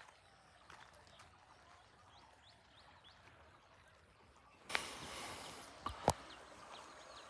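Quiet outdoor ambience with faint, short bird chirps. About five seconds in, a sudden second-long rush of noise, followed by a few sharp clicks.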